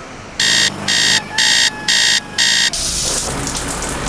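Electronic alarm clock beeping five times in quick, evenly spaced buzzy beeps. Then a shower starts running: a steady hiss of spraying water.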